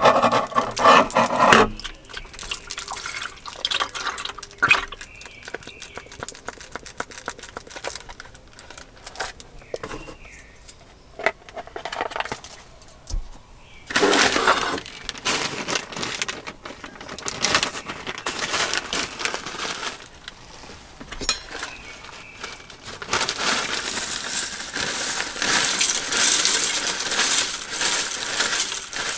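Milk poured from a cut-open pouch into a small stainless steel cup, in the first two seconds. Then a plastic bag of granola is handled, and for the last several seconds dry granola clusters are poured into the cup, giving a dense rustling rattle.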